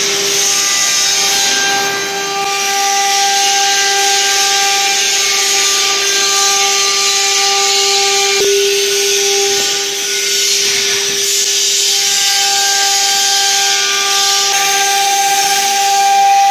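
A high-speed motor runs steadily through the whole stretch with a constant whine over a loud hiss, the sound of power-tool or workshop machinery.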